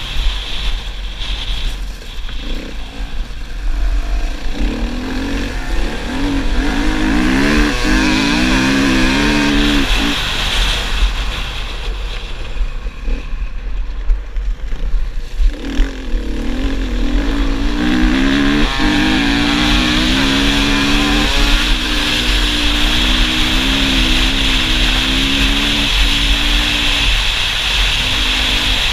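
Husqvarna FE 450 single-cylinder four-stroke enduro engine under hard acceleration, its pitch climbing through the gears and dropping at each shift, with wind rushing over a helmet-mounted microphone. The engine eases off for a few seconds about midway.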